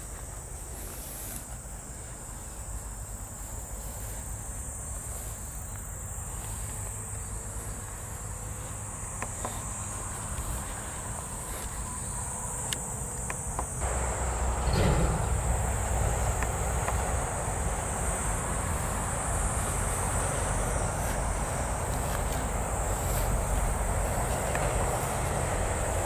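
Insects in the grass buzz with a steady, high, unbroken trill. About halfway through, a louder low rumble of noise comes in and holds.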